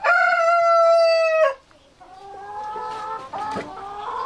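Domestic chickens: a rooster crows once, a long held call that cuts off at about a second and a half. After a short pause, hens call more softly in short, slightly rising notes.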